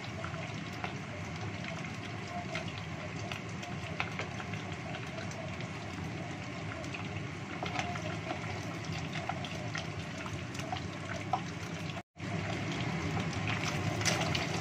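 Chicken wings deep-frying in a pot of hot oil: a steady sizzle full of small pops and crackles, stirred with a wooden spatula. The sound cuts out for an instant near the end.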